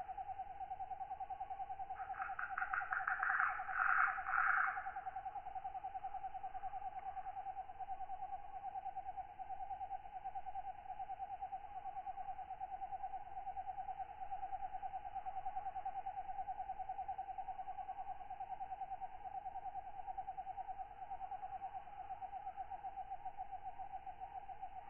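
Tropical night insect ambience with katydids: a steady, fast-pulsed trill at one pitch runs on, and about two seconds in a louder, higher rasping katydid call of rapid pulses sounds over it for some three seconds.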